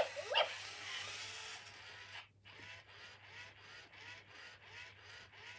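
MGA Georgie robotic plush puppy's internal motors whirring as it moves in response to a sit-down command, with two short rising tones near the start. The whirring then settles into a regular pulsing about two or three times a second.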